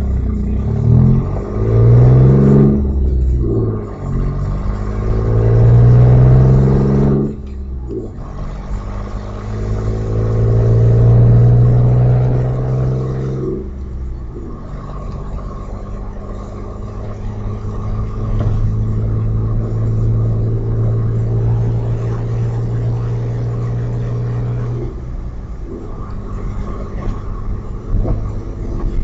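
Audi A4's 2.8-litre 12-valve V6 accelerating through the gears: three rising pulls in engine pitch, each broken by a brief dip at a gear change, then a steady cruising note. The exhaust leaks just before the catalytic converter, leaving one bank of the engine open.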